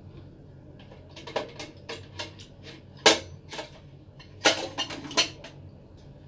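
Dishes and utensils being handled on a table: a run of sharp clicks and knocks, the two loudest about three and four and a half seconds in.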